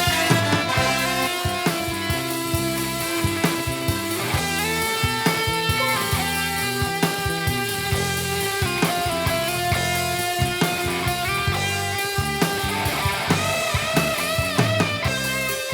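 Instrumental music with a steady beat and bass and a held melody line; the melody notes waver near the end.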